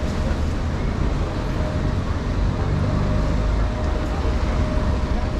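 Steady city street noise: a low hum of road traffic along a busy street, with a faint steady whine from about half a second in.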